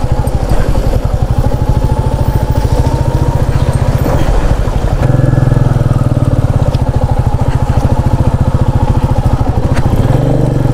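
Motorcycle engine running with a rapid, even beat, growing fuller and a little louder about halfway through.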